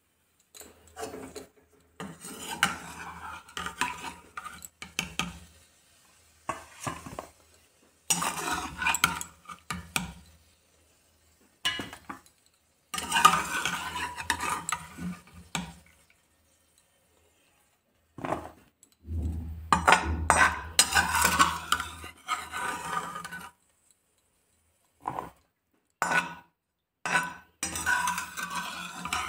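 Steel slotted skimmer scraping and clinking against a metal cooking pot as boiled vegetables are scooped out of their cooking water. The sound comes in irregular bouts of clatter with short pauses between them.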